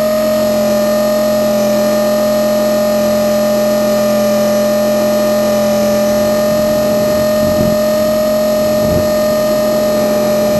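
Blade 450 X electric RC helicopter in flight, its brushless motor and spinning rotors making a steady high whine over a deep hum, heard close up from a camera mounted on the helicopter.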